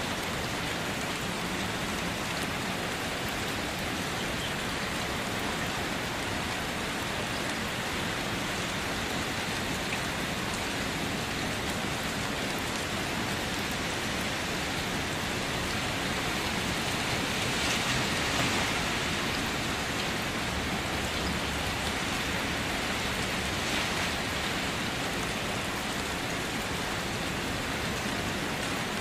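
Steady rain falling on a wet surface, with the hiss swelling louder for a couple of seconds about two-thirds of the way through.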